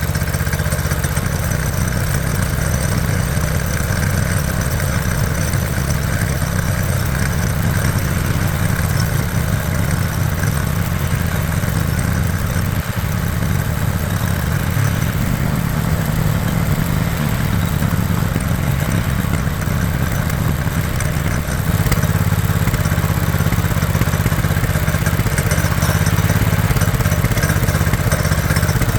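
Coleman go-kart's small single-cylinder gasoline engine idling steadily with its fuel shut off, running the carburetor dry for storage. It gets slightly louder about 22 seconds in.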